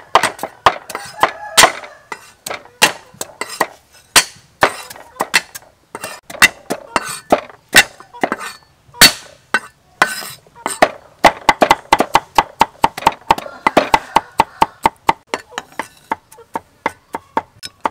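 Steel cleaver chopping garlic cloves on a thick round wooden chopping board: many sharp knocks of blade on wood at an uneven pace, coming faster and closer together from about eleven seconds in.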